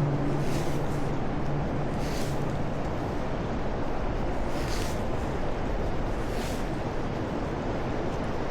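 Steady rushing noise of flowing river water, with a low hum fading out in the first second or two.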